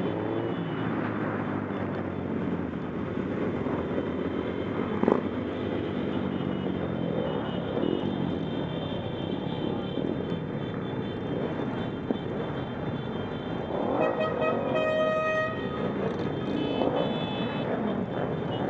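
Engines of a large group of motorcycles riding slowly together in city traffic, several revving up and down, heard from a helmet camera on a Honda CBF600. A sharp knock about five seconds in, and a vehicle horn sounding for about a second and a half, about fourteen seconds in.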